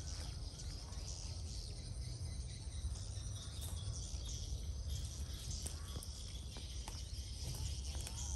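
Swiftlets circling overhead, twittering in high, thin chirps over a steady low rumble.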